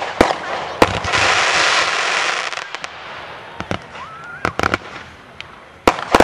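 Consumer 1.4G fireworks going off: sharp bangs of shells launching and bursting, with a loud hissing stretch about a second in and a short rising whistle a little past halfway. A quick cluster of bangs comes near the end.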